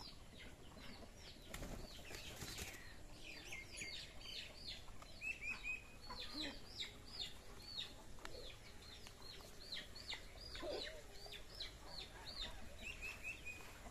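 Birds chirping throughout in quick, short, downward-sliding chirps, with a brief rustle about two seconds in and an occasional low cluck from the hens.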